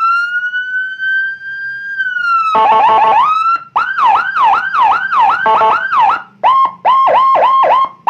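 Custom Whelen 295SL-style electronic police siren, a 100-watt module driving a 100-watt horn speaker, stepped through several tones. It opens with a long wail that holds and then slides down, gives a short multi-tone blast about two and a half seconds in, then a fast yelp sweeping up and down about three times a second, and ends on a rapid pulsing tone.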